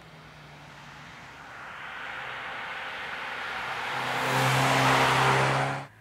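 A Mercedes-Benz CLA 250's 2.0-litre turbocharged four-cylinder engine and tyres as the car approaches on a wet road, growing steadily louder. The engine keeps a steady note under a rising hiss of tyres on wet asphalt. The sound cuts off suddenly just before the end.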